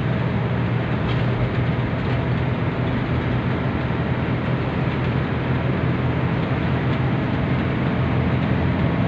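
Cabin noise inside a coach bus moving at highway speed: a steady low engine drone under road and wind noise.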